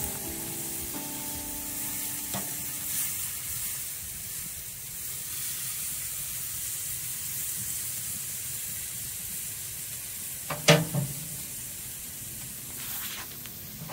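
Beef steaks sizzling on a charcoal grill grate, a steady hiss, with one sharp clank about ten and a half seconds in, the loudest sound.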